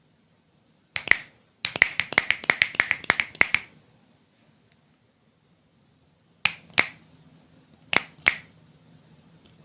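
Slime being squeezed and worked by hand, giving sharp popping clicks: a pair about a second in, a quick run of about a dozen over the next two seconds, then two more pairs near the end.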